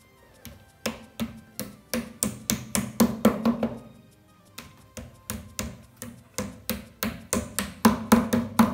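Claw hammer tapping small plastic floor-protector feet into the bottom edges of a particleboard IKEA BILLY bookcase: two runs of quick strikes, about three a second, with a short pause about four seconds in. The strikes grow louder near the end.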